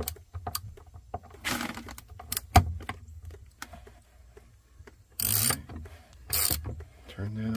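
Socket ratchet clicking as it turns the valve stems on a geothermal loop flow center: single ticks, with three short bursts of rapid clicking, and one sharper knock about two and a half seconds in.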